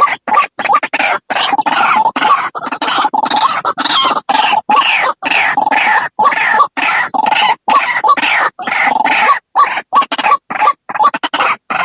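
White-breasted waterhen (ruak-ruak) calling: a fast, continuous run of harsh repeated notes, several a second, broken by short gaps.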